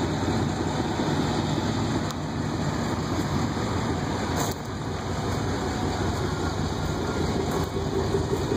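Pickup truck engine idling: a steady low rumble.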